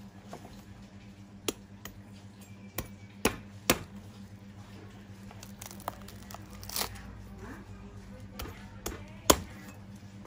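A steel cleaver chopping and prying into the thorny husk of a fresh durian: a series of sharp knocks and cracks, about eight in all, spaced irregularly.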